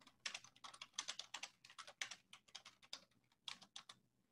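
Faint typing on a computer keyboard: a quick, steady run of keystrokes that stops shortly before the end.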